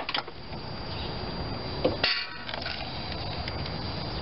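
Rubber spark plug wire boot being worked off the distributor cap tower by hand: light clicks of handling, then one short squeak about two seconds in.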